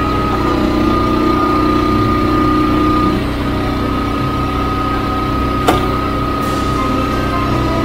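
Wolfe Ridge hydraulic log splitter's gas engine running steadily, its low note shifting about three seconds in as the ram works through a log. A single sharp crack comes a little under six seconds in.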